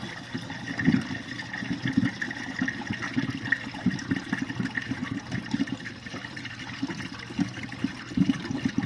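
GE dishwasher spraying water inside its tub during a rinse, with irregular splashing and sloshing against the door and racks.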